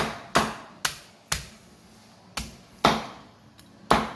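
Knife chopping through the crispy roasted skin of pork belly on a cutting board: about seven sharp, crunchy chops at uneven intervals, with a pause of about a second in the middle.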